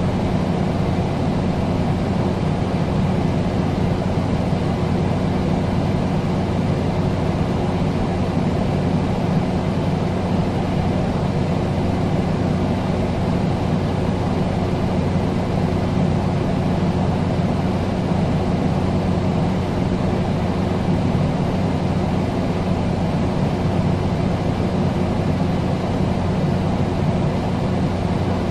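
Air conditioner running steadily: an even rushing of air over a constant low hum.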